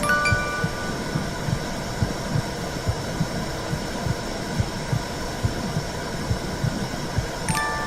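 Womb sound for soothing a baby: a steady whooshing rush with a low, rhythmic heartbeat-like pulse. A few soft chime notes ring at the start and again near the end.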